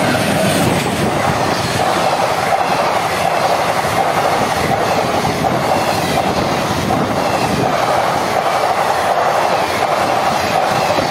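Indian Railways express train passing close by at speed: the steady, loud rush and rumble of its passenger coaches' wheels on the rails, holding evenly throughout.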